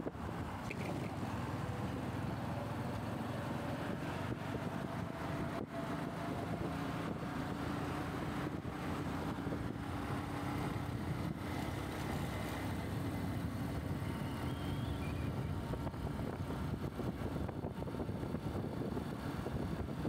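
Steady road noise of a motorbike being ridden on a highway: engine, traffic and wind on the microphone blended into one continuous rush, with a faint engine tone rising slowly in pitch midway through.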